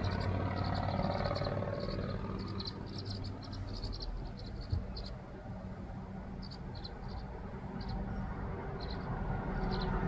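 Nestling birds chirping from a nest box: short, high chirps come quickly for the first few seconds, then more scattered. A steady low rumble runs underneath.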